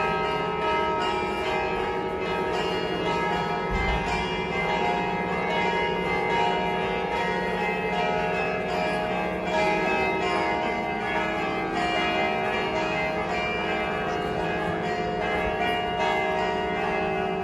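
Church bells ringing in a continuous peal, strokes following each other quickly so that their tones overlap and ring on.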